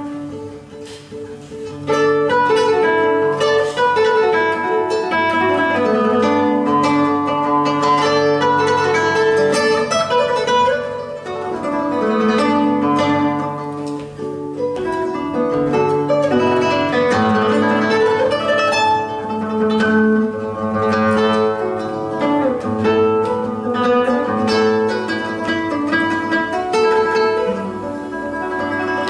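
Solo classical guitar, nylon strings fingerpicked, playing a continuous flowing passage of many quick notes. The first two seconds are softer before the playing comes back in full.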